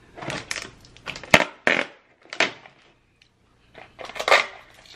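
Small cardboard candy box being lifted out of a wooden crate and handled: a run of short crinkly rustles with a sharp click about a second and a half in, a pause, then more rustling near the end.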